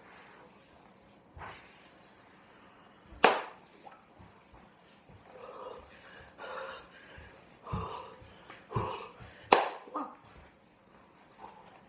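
A person dancing without music: two sharp slaps, about six seconds apart, are the loudest sounds, among softer knocks and short breathy vocal sounds.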